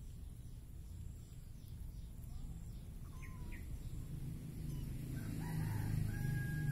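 A rooster crowing about five and a half seconds in, a held two-part call, after a few short chirps. Under it a low rumble grows louder toward the end.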